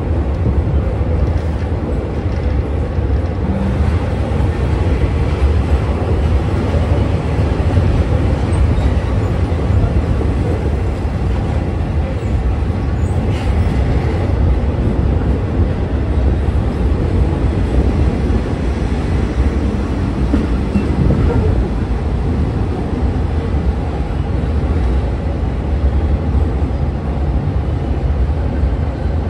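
Passenger train running steadily on its track, a continuous low rumble of wheels on rails heard from the carriage window.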